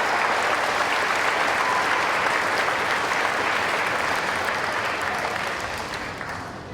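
Audience clapping for a student called to the stage, dying away near the end.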